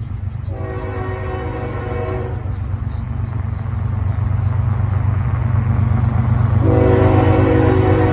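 Air horn of an approaching CSX diesel freight locomotive: one long blast starting about half a second in and lasting about two seconds, then another starting near the end, sounded for a grade crossing. Under it, a steady low rumble from the train grows louder as it nears.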